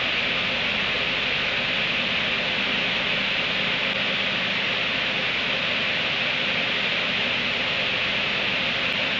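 Steady hiss that does not change, strongest in the upper-middle range, with a faint low hum beneath it; no separate sounds stand out.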